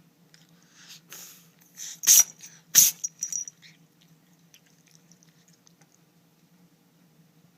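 Scottish Fold kitten sneezing twice in quick succession: two short, sharp bursts about half a second apart, after a couple of quieter noises.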